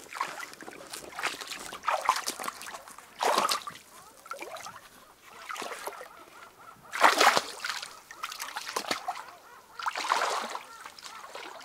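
Reservoir water splashing and sloshing around a swimmer, in irregular bursts every one to three seconds, the loudest about seven seconds in.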